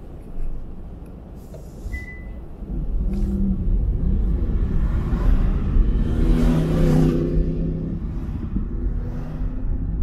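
Car road noise on a highway, with a motor vehicle's engine growing louder from about three seconds in, loudest just past the middle, then easing off.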